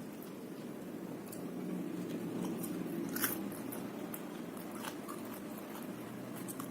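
Close-miked chewing of a crispy fried mini samosa, with scattered sharp crunches of the pastry; the loudest crunch comes about three seconds in.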